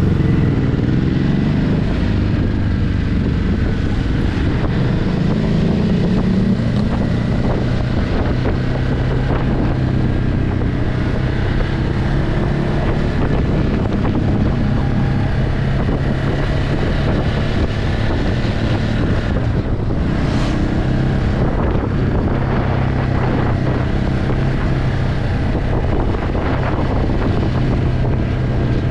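Ducati Hypermotard 950's L-twin engine through its stock exhaust, heard onboard while riding: the engine note rises and falls with the throttle for the first several seconds, then holds mostly steady. Wind noise on the microphone runs underneath.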